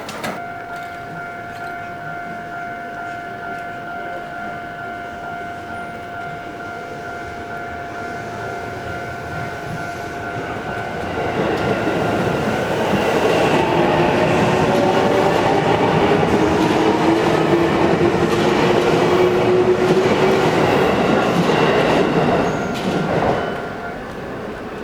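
A train passes close by for about twelve seconds, starting about ten seconds in, with wheel and track noise and a slowly rising whine, then fades away. A steady tone is heard before the train arrives.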